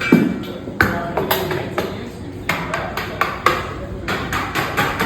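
A run of sharp taps with a brief ringing ping after some of them, irregular at about two to four a second.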